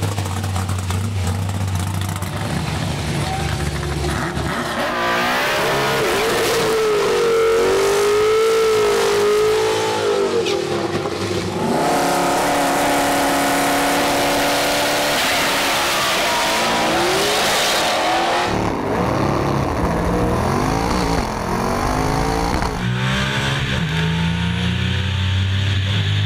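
Drag-race V8 engines revving and idling at the starting line, with the revs swinging up and down in a burnout and then held steady while staging. Near the end comes the deep run of the Lexus IS300's twin-turbo LS V8, heard from inside the car.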